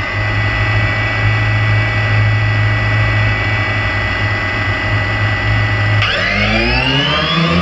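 DJI Phantom quadcopter on the ground giving a steady electric hum, then about six seconds in its motors spin up with a rising whine as it throttles up for takeoff.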